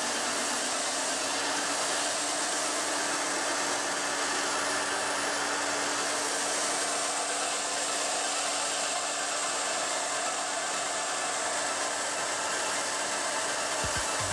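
Heat gun blowing hot air steadily onto a phone's back cover to soften the adhesive tape holding it: an even rush of air with a steady low hum. A low knock or two right at the end.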